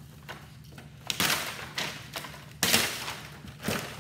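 White reflector sheet from a flatscreen TV's LED backlight being ripped out and crumpled by hand: a few sharp crackling rustles after a quieter first second, the loudest about two and a half seconds in.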